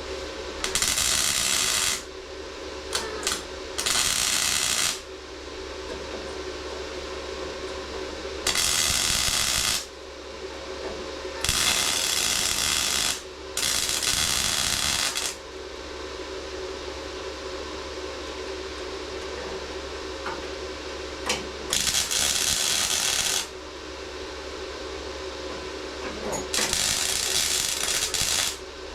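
MIG welder laying short stitch welds on sheet-steel body panel: seven crackling, hissing arc bursts of one to two seconds each, with a few brief blips between them. A steady hum carries on underneath.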